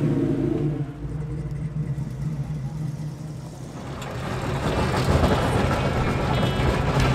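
1961 Chevrolet Bel Air's engine running: an engine note fades in the first second, then a rougher, noisier rumble builds from about four seconds in.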